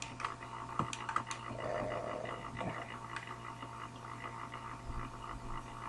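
Faint, scattered clicks of a computer mouse and keyboard, a few sharp taps spaced irregularly, over a steady low electrical hum.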